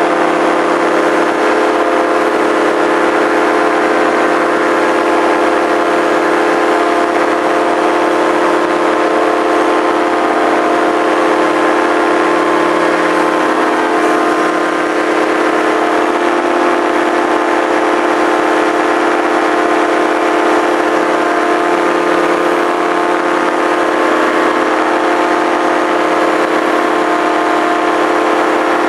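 Engine of a small aircraft running steadily at constant throttle in flight, heard close from on board, with a hiss of rushing air over it.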